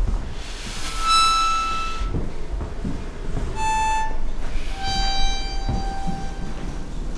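Background score music: a slow run of single held notes, each about a second long, over a steady low hum.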